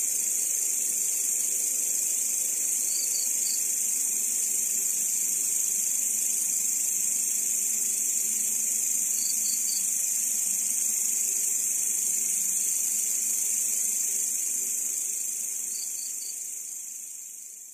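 Grasshoppers (belalang) calling in a continuous high-pitched buzz. About every six seconds a short burst of three quick chirps from another, slightly lower caller sounds over it. The chorus fades away near the end.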